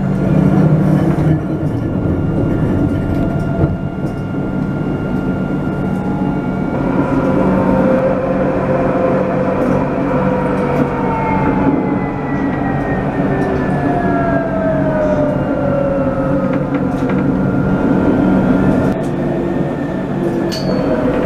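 Alstom Citadis 302 low-floor tram running, heard from on board: a steady rumble and hum, with an electric motor whine whose pitch falls slowly across several seconds in the middle.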